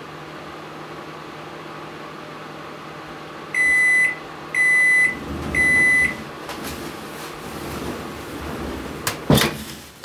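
Microwave oven running with a steady hum while defrosting, then stopping as three beeps signal the end of the cycle. Near the end, a sharp click as the door is released and swung open.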